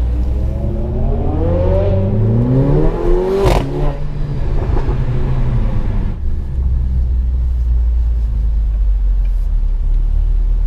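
Mercedes-AMG A45's turbocharged four-cylinder with an aftermarket exhaust under hard acceleration. The engine note rises for about three seconds, then gives a sharp crack about three and a half seconds in as the pitch drops at the upshift. It then settles into a steady, lower drone.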